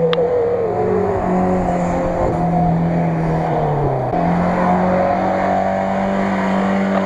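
Ford Maverick GLX off-roader's engine running hard as it accelerates and turns on a muddy field. Its note rises and falls, with a dip and recovery about four seconds in.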